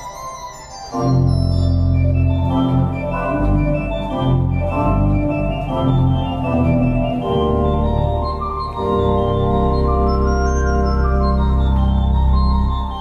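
Organ music: loud held chords that change every second or two, with deep bass notes coming in about a second in.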